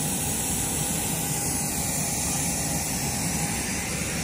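Jet airliner engines running on the ground before take-off: a steady, even hiss.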